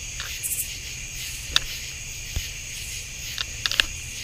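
A steady night chorus of crickets and other insects, with a few sharp clicks of the Thrunite TH20's button, including a quick double click near the end as it is pressed for turbo mode.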